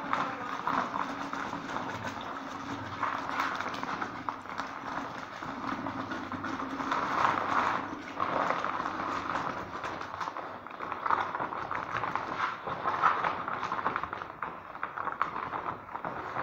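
Calcium powder pouring from a plastic sack into a plastic bucket of water: a steady hiss with the sack rustling and crinkling, swelling and easing as the pour shifts.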